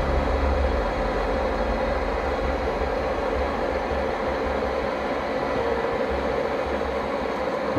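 Old metal-working lathe running steadily: a deep hum with a steady higher drone over it.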